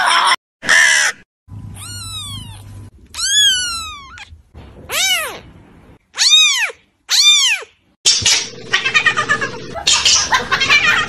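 Kitten meowing: a run of about five high-pitched meows, each rising and falling in pitch. From about eight seconds in comes a long wavering cry broken into quick pulses, a "wawawa".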